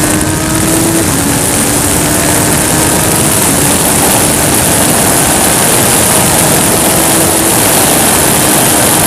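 Race car engine accelerating with a rising note, then shifting gear about a second in, after which the engine note carries on faintly under loud, steady rushing wind noise on the rear-facing camera's microphone.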